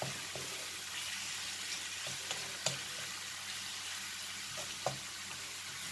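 Minced meat and onion frying in oil in a pan, a steady sizzle, stirred with a wooden spoon that knocks against the pan a few times.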